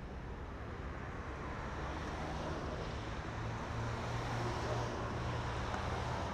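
City road traffic: cars driving past a pedestrian crossing, as a steady rush of tyre and engine noise. It grows louder about four to five seconds in as a car passes close by with a low engine hum.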